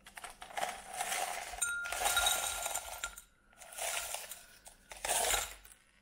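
Ice cubes tipped from a container clattering and clinking into a glass tumbler in several rushes, with the glass ringing faintly in the middle.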